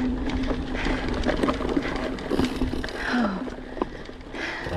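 Mountain bike rolling fast over a dirt trail, with the tyres rumbling and the bike rattling and clicking over bumps, and wind buffeting the handlebar-mounted microphone. A steady low hum fades out after about a second.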